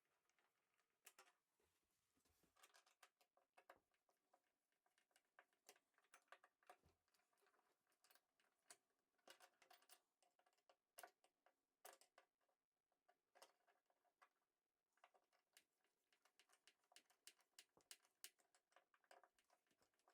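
Very faint, irregular clicking and light tapping of small metal door-hook hardware being handled and screwed in with a screwdriver.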